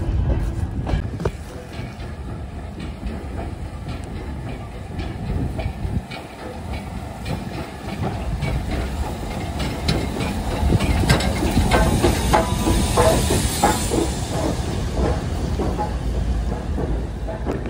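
An LMS Black Five steam locomotive, number 45305, running slowly into the platform. Its wheels click over the rail joints, growing louder as it draws close, with a hiss of steam as it passes.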